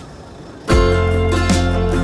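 Background music led by a strummed guitar, coming back in with a strum after a brief pause under a second in.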